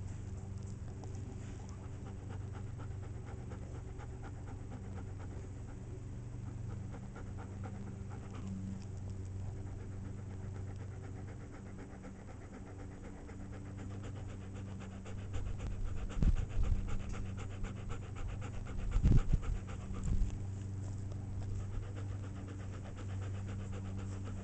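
Dog panting steadily with its mouth open, over a steady low hum. A few louder low rumbles come through about two-thirds of the way in.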